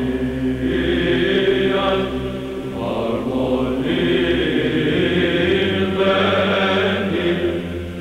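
Chanting voices in the manner of Orthodox Byzantine chant, singing a slow melody over a low held drone.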